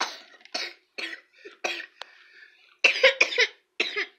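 A young boy coughing over and over, about ten short coughs in a row, the loudest a quick cluster about three seconds in. He has a cold.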